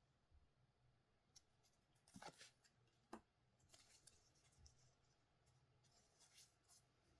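Faint, scattered rustles, scrapes and soft clicks of trading cards and their packaging being handled, the sharpest about two and three seconds in.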